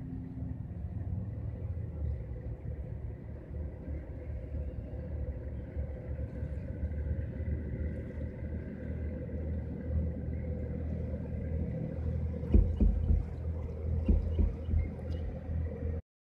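Steady engine drone over a low rumble, with a few louder low thumps about three quarters of the way through; the sound cuts out briefly near the end.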